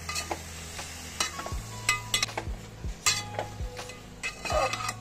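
Slotted metal spatula scraping and clinking against an aluminium pot, in uneven strokes every half second or so, as raw meat pieces are stirred into hot oil with onions and ginger-garlic paste, frying with a light sizzle. A steady low hum runs underneath.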